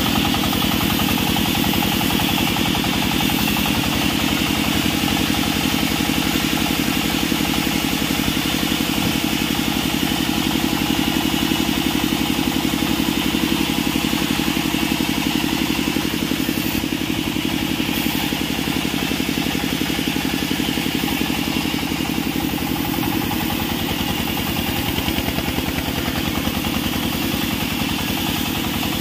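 Engine-driven vertical band sawmill running under load as a log is fed through the blade: a steady engine drone with a rapid, even pulse, easing slightly about two-thirds of the way through.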